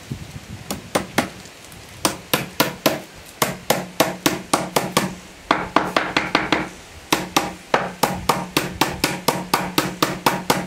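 Claw hammer driving steel pinch dogs into the end grain of pine boards, pulling the lid joint tight. Repeated sharp taps, about three a second, in runs with short pauses.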